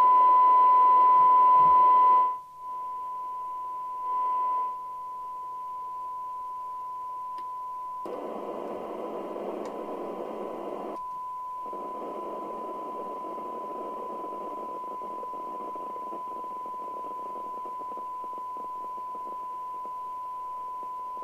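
A CB radio receiver's speaker playing a steady test tone under hiss, the tone loud for the first two seconds and then softer. The hiss cuts out abruptly twice and swells for a few seconds in the middle. This is the receiver's instability with a very weak input signal below about 0.8 microvolts, which may come from the test set itself.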